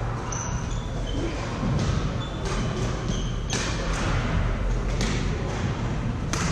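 Badminton play in a large echoing hall: racket strikes on the shuttlecock at irregular intervals, about half a dozen sharp cracks, with short high squeaks of shoes on the court floor in the first few seconds over a steady hall hum and distant voices.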